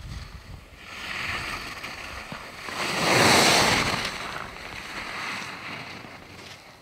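Skis carving and scraping on packed snow as a skier turns past close by: a hiss that swells to its loudest about three seconds in, then fades as the skier moves away. Wind buffets the microphone at the start.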